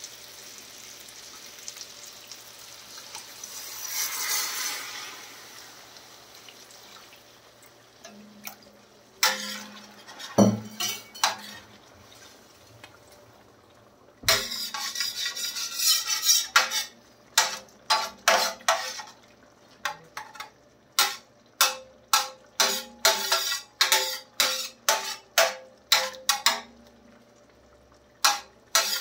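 A steel slotted spatula stirs and scrapes fish pieces around a large steel tawa of simmering masala gravy, with repeated metal clinks and scrapes about two a second in the second half. Before that, a low hiss of water heating on the hot pan.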